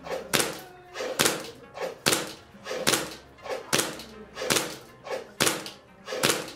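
Green-gas blowback Hi-Capa airsoft pistol (TTI Sand Viper 2011) firing single aimed shots at a steady pace, about one a second. Each shot is a sharp crack of the cycling slide, with fainter knocks between the shots.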